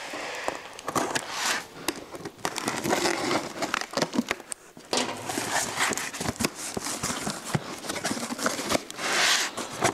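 Utility knife slitting packing tape along the top of a cardboard box, then the cardboard flaps being pulled open, with scraping, crackling and crinkling throughout.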